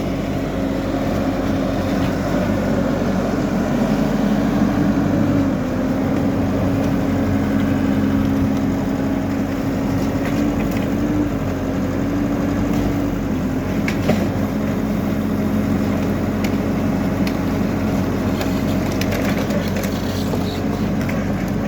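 Hidromek backhoe loader's diesel engine running steadily as the machine works, its pitch rising and dipping a little, with a few sharp knocks around the middle and near the end.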